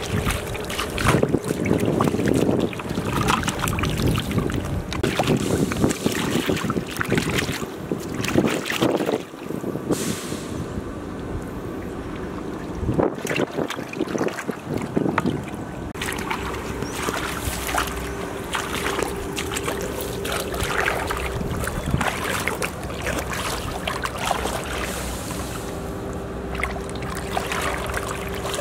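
Shallow muddy water splashing and sloshing in irregular bursts as hands churn and scoop through it.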